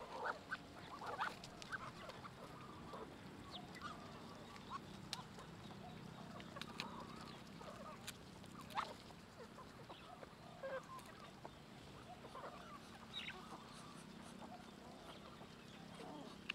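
Faint, scattered short calls of ducks and other poultry, with a few sharp clicks.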